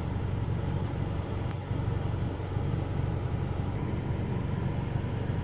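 Ford Mustang's engine idling steadily, a low even hum.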